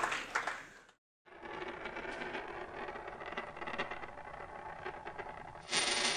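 Applause fading out in the first second. After a brief gap comes a sound effect of coins rolling and rattling, a steady run of fine clicks, ending in a short, louder burst that cuts off abruptly.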